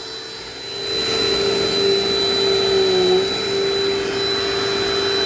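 Dirt Devil Dynamite vacuum cleaner running: a steady motor whine with a thin high tone above it, quieter for about the first second and then louder, the pitch dipping briefly about three seconds in.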